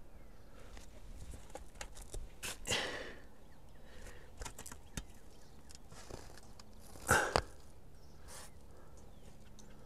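Faint handling noises on an asphalt-shingle roof: scattered light taps and scrapes of hands and a roof mount against the shingles, with two short scraping swishes about two and a half and seven seconds in.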